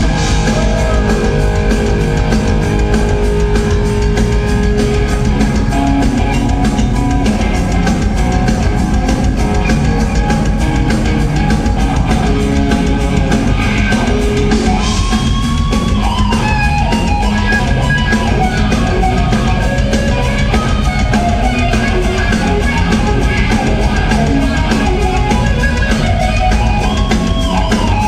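Hard rock band playing live and loud: distorted electric guitar, bass guitar and a drum kit, with a few sliding high notes now and then, heard from among the audience in a hall.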